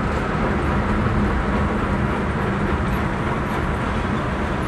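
Steady road and engine noise heard inside a moving car's cabin on a highway: an even rumble with tyre hiss and no single standout event.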